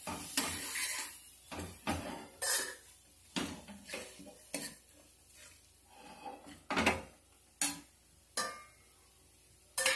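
Steel spoon knocking and scraping against a kadhai while stirring thick masala with dry spices just added: about a dozen irregular clinks, with a short lull just before the end.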